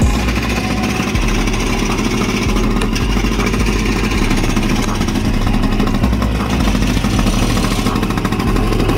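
A small 60cc two-stroke kart engine running hard, a steady, dense, rattling buzz.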